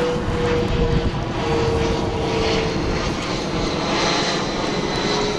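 Fixed-wing airplane flying close by, its engine noise loud and steady, with a held drone and a faint high whine over it.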